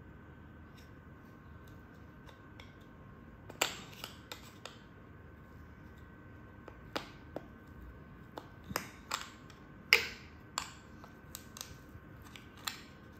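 Irregular sharp clicks and light knocks, a dozen or so, from small hard objects being handled, the loudest about three-quarters of the way through, over a faint steady high tone.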